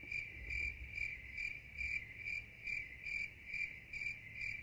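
Crickets chirping steadily at night, an even, high-pitched chirp about twice a second.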